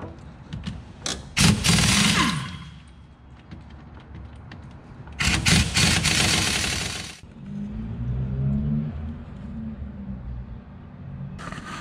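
Air impact wrench hammering out the hub-bearing bolts on a 2000 Chevy Malibu's front steering knuckle, in two loud bursts of a second or two each, followed by quieter rattling.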